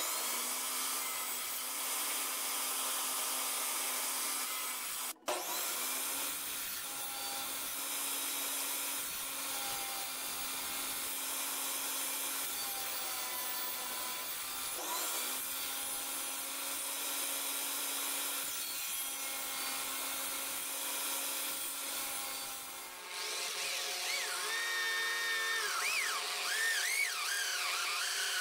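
Benchtop table saw running and cutting slots into a small wooden block, with a short break twice. About 23 s in, it gives way to a drill press boring into the wood with a 40 mm hole saw, a whining sound whose pitch rises and falls.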